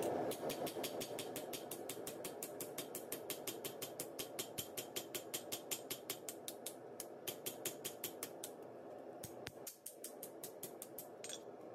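Hand hammer striking red-hot leaf-spring steel on an anvil, forging a knife blade: a fast, even run of sharp metal-on-metal blows, about six a second, with a short pause about nine seconds in.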